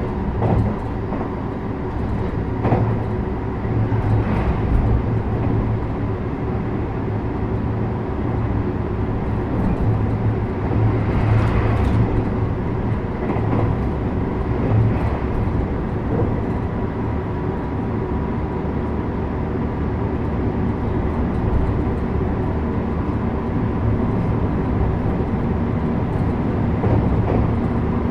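Running sound inside a JR West 321 series electric train travelling at a steady speed. A constant rumble of wheels on rail carries a steady electrical whine, with a few short knocks from the track at scattered moments.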